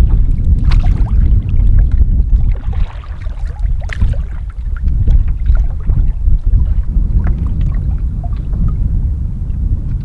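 Wind rumbling on the microphone in a canoe on choppy water, with scattered small splashes and knocks as a wooden paddle works the water.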